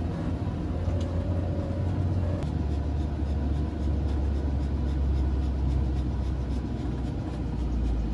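Winnebago Revel Sprinter 4x4 van's V6 turbodiesel engine running while driving, a steady low drone that shifts to a new pitch about two and a half seconds in.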